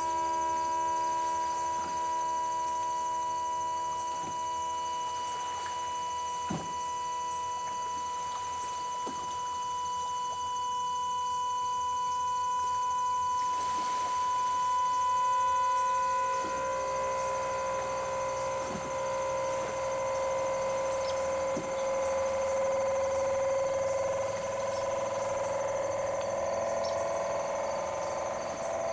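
Electronic synthesizer holding a sustained drone of several steady tones at once. About halfway through, the high tone drops away and a lower tone takes over.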